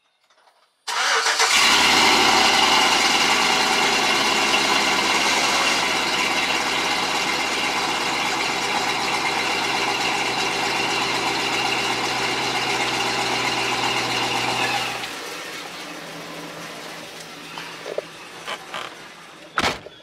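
Chevy truck engine started, then idling steadily through its old rusted stock muffler and tailpipe, heard from right at the tailpipe. After about fourteen seconds the sound drops sharply to a much lower level.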